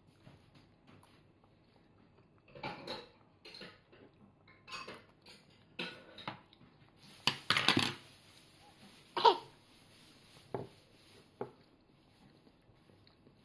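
Metal spoon and fork clinking and scraping against a bowl in scattered short knocks, with a longer scrape about halfway through and a sharp clink just after it.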